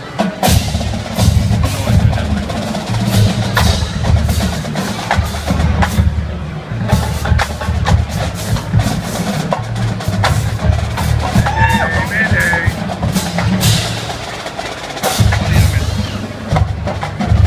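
Marching band drumline playing a cadence: heavy, pulsing bass drums with sharp snare and stick hits.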